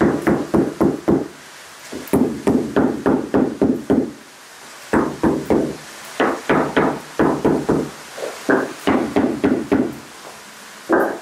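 White rubber mallet tapping a wood-look porcelain floor tile down into its adhesive bed to seat and level it. The taps come in quick runs of about five or six a second, with short pauses between the runs.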